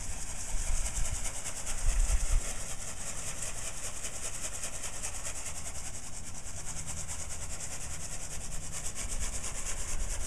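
Granular lawn fertilizer shaken out of a plastic applicator jug, a steady hissing rattle of granules. There is low rumble and a few thumps in the first couple of seconds.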